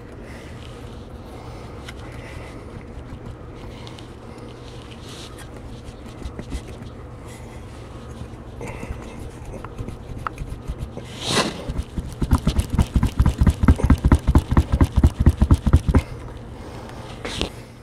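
Hand work on a Lambretta kickstart mounted on its chain case cover as its return spring is preloaded: a low steady hum with small clicks, then a metallic clank about eleven seconds in, followed by a quick run of dull thumps, about six a second, for some four seconds.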